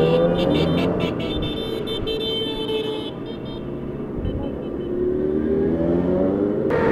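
Sport motorcycles in a convoy riding past close by, their engines revving up in rising glides as each one accelerates away. The sound changes abruptly near the end.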